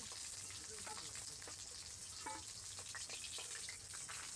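Hot mustard oil sizzling in a kadai after frying rohu fish pieces, with a few light clinks and scrapes of a metal spatula against the pan as the pieces are lifted out.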